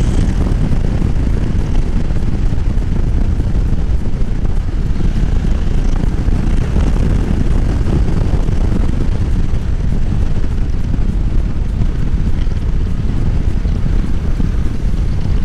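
Steady wind noise buffeting the helmet-mounted microphone while riding a Yamaha Tracer 7 motorcycle at speed, with the bike running underneath.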